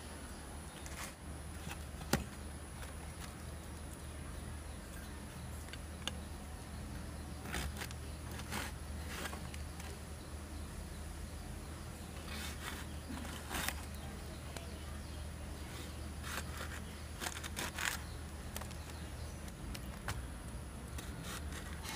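Bottle gourd being cut on a boti, a curved blade fixed upright on a wooden base: short crisp cutting strokes at irregular intervals, with a sharp click about two seconds in. A steady high insect drone runs behind.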